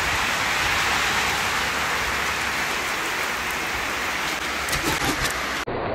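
Steady rain falling on a wet concrete rooftop.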